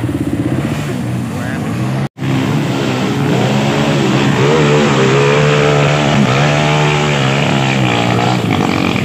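Dirt bike engine running under load as a rider climbs a muddy trail, with voices of onlookers calling out over it. The sound breaks off briefly about two seconds in.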